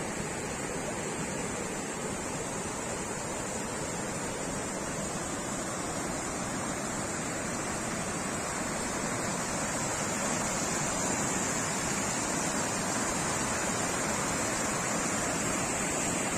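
River water rushing steadily over a shallow rock shelf and small rapids, a constant hiss that grows a little louder about ten seconds in.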